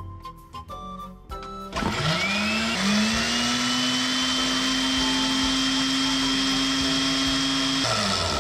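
Electric countertop blender switched on about two seconds in, its motor whine rising as it spins up, briefly dipping and climbing again, then running steadily as it purées garlic cloves in water; it cuts off near the end.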